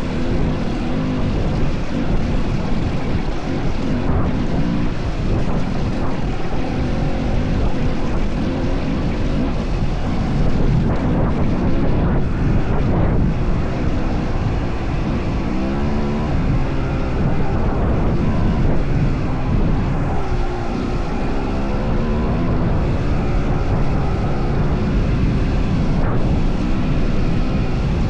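Kawasaki KX250 dirt bike engine running while being ridden, its pitch rising and falling several times as the throttle opens and closes.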